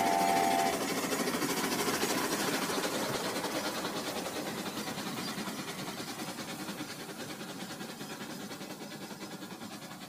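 Battery-powered toy trains' motors and wheels running on plastic track, a rapid rattling buzz that fades steadily as the train runs away. A toy horn tone cuts off just under a second in.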